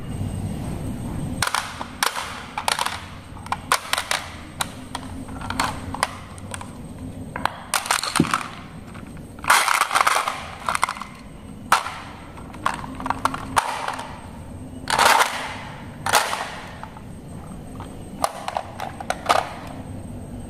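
A plastic toy garbage truck being handled: its dump bin and plastic parts clicking and knocking, with marbles rattling about inside it in a few longer clatters.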